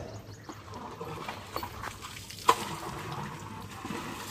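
Water running from a hose into a cement trough while a water buffalo drinks from it, with one sharp click about halfway through.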